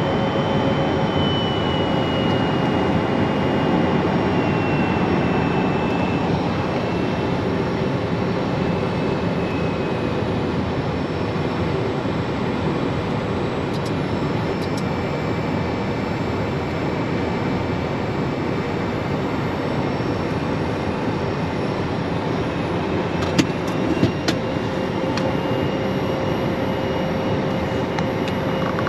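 Steady cockpit noise of an Embraer Phenom 100 light jet on approach: airflow and the hum of its twin turbofans, with a high whine that slowly falls in pitch over the first few seconds. A few sharp clicks about 14 seconds in and again near the end.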